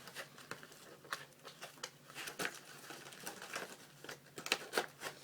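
Packaging being handled: irregular crinkling and rustling with scattered small clicks and taps.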